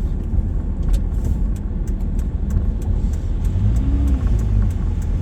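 Steady low road and engine rumble inside a vehicle's cab while driving on a snowy plowed road, with light clicks and rattles scattered through it.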